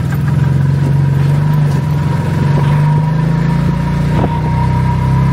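Small engine of a motorized tricycle taxi running steadily at road speed, heard loud and close from the passenger seat.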